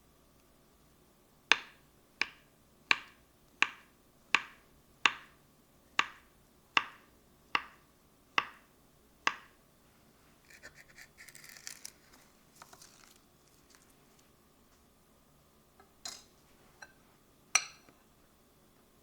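A knife chopping on a cutting board: eleven even, sharp strokes about three-quarters of a second apart, then a brief rustle and two or three more knocks near the end.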